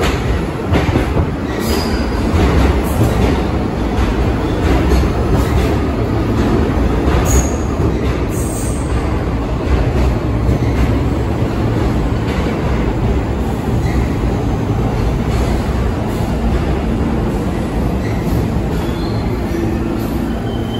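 New York City subway train pulling into an underground station and slowing along the platform. Its wheels on the rails make a steady heavy rumble, with clacks over the rail joints and a few short high squeals from the wheels.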